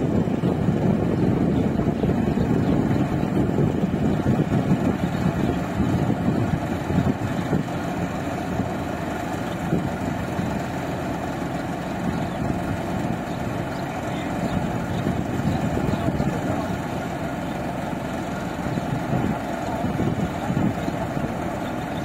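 New Holland combine harvester running steadily with its unloading auger engaged, discharging threshed rice grain into a truck: a dense, continuous machine noise.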